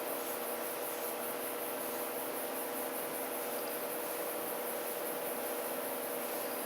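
Steady high-pitched hiss with a low electrical hum underneath. It is recording noise, with no distinct strokes or other events standing out.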